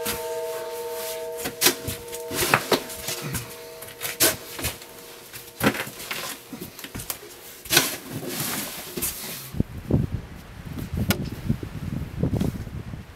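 A snow shovel chopping into hard-packed snow that fills a doorway: sharp, irregular strikes every second or two, with crunching between them. About ten seconds in the sound turns duller, with scraping and crunching of snow being shovelled. A plucked ukulele tune fades out at the very start.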